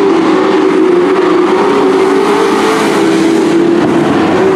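Several dirt-track race trucks' engines running hard together at racing speed, a loud, steady drone from more than one engine, the pitches wavering slightly.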